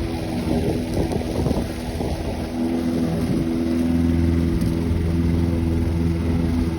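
Lawnmower engine running steadily while cutting grass, its pitch dipping and recovering slightly as the load changes.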